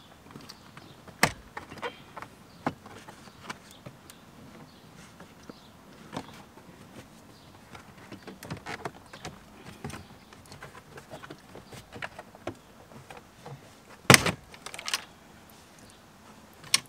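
Plastic dashboard trim panel being wiggled and pulled loose by hand: scattered plastic clicks and rattles, with a sharp knock about a second in and a pair of loud clacks near the end.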